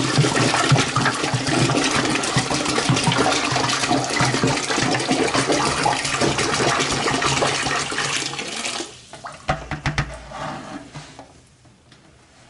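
Warm water pouring steadily into a toilet tank, stopping abruptly about nine seconds in; a few light knocks follow.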